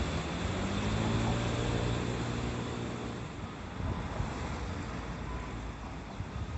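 A passing vehicle's engine hums with a slightly rising pitch and fades out about three seconds in. Underneath is a continuous rushing noise, fitting the Uji River running high after heavy rain.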